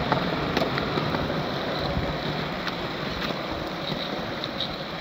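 Skateboard wheels rolling over a concrete court: a steady rolling rumble with a few light clicks now and then.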